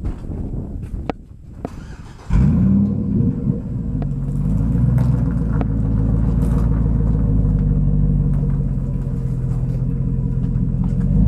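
Chevrolet Silverado pickup truck's engine starting about two seconds in, rising briefly in pitch, then running steadily.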